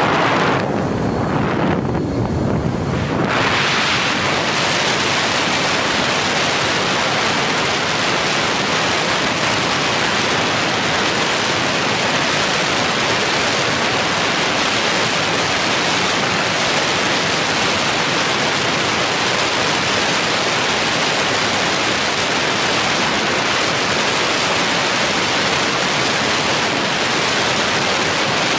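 Steady rushing wind noise on the onboard camera microphone of a Mini Talon fixed-wing FPV plane in flight. For the first few seconds the hiss is duller, then it settles into a full, even rush.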